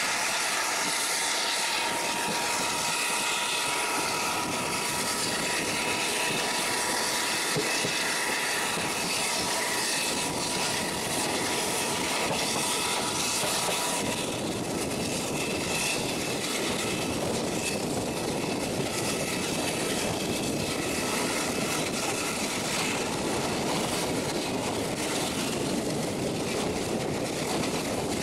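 Passenger train running at speed, heard from an open coach doorway: a WDM-3D diesel locomotive working ahead, mixed with steady wheel-on-rail rumble and rushing wind. A thin steady whine sits over the noise for the first half.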